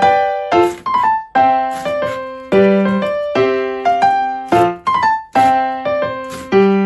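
Background piano music: a run of struck notes and chords, each one fading after it is played, about two a second.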